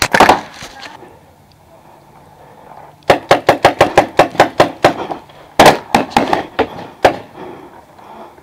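Paintball pistols firing fast semi-automatic shots: a burst of about a dozen sharp shots at roughly five or six a second, a short pause, then a second burst of about eight.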